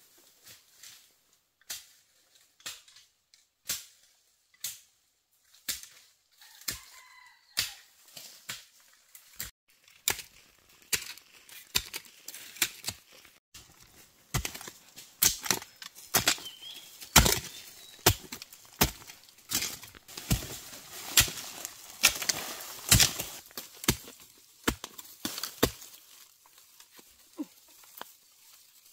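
A hoe chopping into loose soil to dig out a bamboo shoot: sharp, irregular strikes that come sparsely at first, thick and fast through the middle, and thin out near the end.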